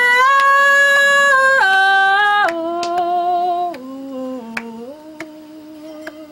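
A woman singing a Haitian traditional song solo and unaccompanied: a phrase of long held notes that step down in pitch, loudest over the first two seconds or so and softer toward the end. A few faint clicks are scattered through it.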